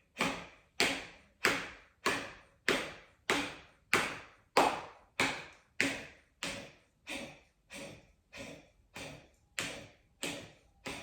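Kapalbhati (breath of fire): a person's forceful, rapid exhales through the nose, mouth closed, each a short sharp puff with a quiet passive inhale between. About three puffs every two seconds in an even rhythm, roughly eighteen in all.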